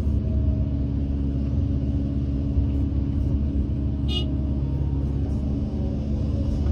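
Backhoe loader's diesel engine running steadily with a deep, even rumble. A brief high squeak comes about four seconds in.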